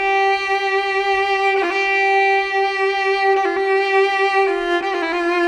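Background music: a violin playing a slow melody of long held notes, changing pitch only a few times.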